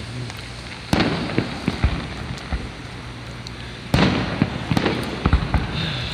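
Fireworks display: two bangs about three seconds apart, each followed by crackling, over a steady background of further fireworks.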